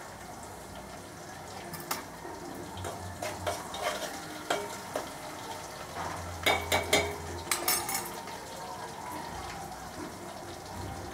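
Oil sizzling steadily in a pan on a gas stove, with metal utensils and pots clinking and clattering several times in the middle.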